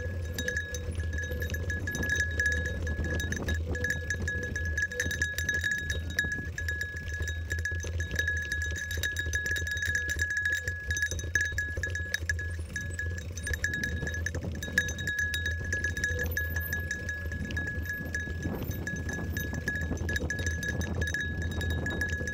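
Mountain bike riding over a rough dirt trail, heard from a handlebar-mounted camera: a steady low rumble of tyres on dirt with many small rattles and clicks from the bike. A steady high ringing tone sounds over it.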